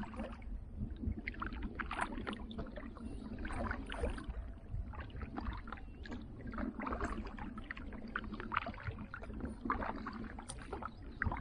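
Kayak paddle strokes: the blades dip and splash in the water at an irregular pace, with water slapping around the hull. Underneath runs a steady low rumble of wind on the microphone.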